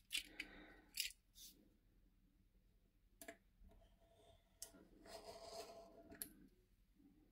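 Circle cutter being worked on paper: faint clicks as the tool is handled and set down, and a short stretch of the blade scratching through the paper about five seconds in.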